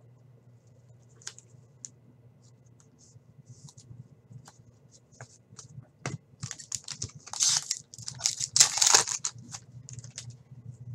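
Glossy trading cards handled and slid against one another with light scratchy clicks. About seven seconds in comes a louder run of crinkling and ripping as a foil pack of hockey cards is torn open.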